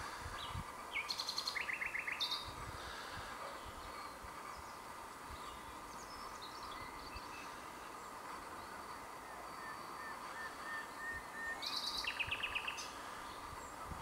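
Common nightingale singing: two loud phrases, about a second in and again near the end, each made of fast runs of repeated notes and sharp whistles, with softer scattered notes in between. A steady background hiss runs underneath.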